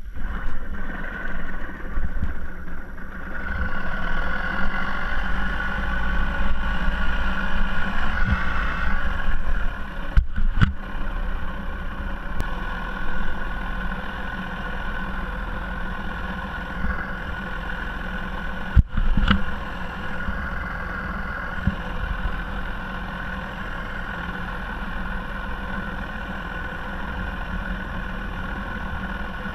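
Small outboard motor running steadily, pushing a loaded kayak through the water, with two brief breaks in the sound about ten and nineteen seconds in.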